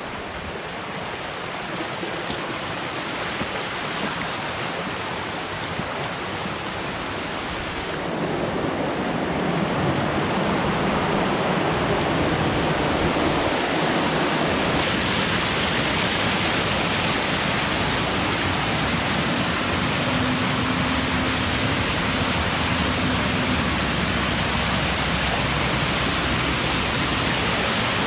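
Water rushing down the cascades of a small rocky creek. The steady rush grows louder about a third of the way in and again about halfway through.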